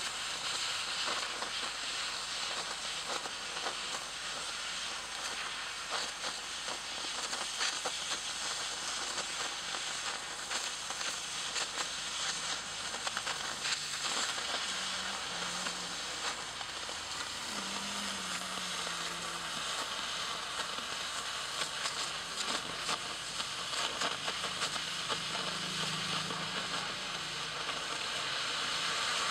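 Oxy-fuel cutting torch cutting through a steel plate: a steady hiss of the gas jet with crackling from the sparks and molten slag.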